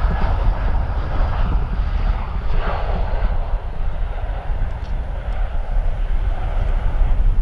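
Jet engines of an Airbus A319 airliner on final approach and landing, a steady loud rumble with a heavy low end.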